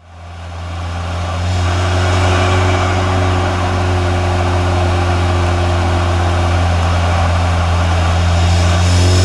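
Cupra Ateca's tuned turbocharged EA888 four-cylinder engine running at steady revs, heard through intake and exhaust microphones as a deep, even drone. It fades in over the first couple of seconds and holds a constant pitch throughout.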